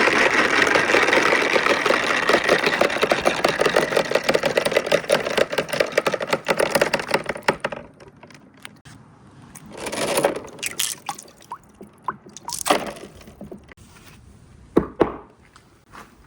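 Many marbles rolling and clattering down a wooden marble run in a dense, fast rattle. About eight seconds in it thins to single marbles clicking and knocking against the wooden track, with a short rolling run about two seconds later.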